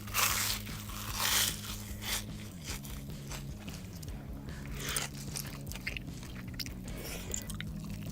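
Close-miked eating: two loud crunching bites into crisp food in the first second and a half, then quieter chewing with scattered crunches.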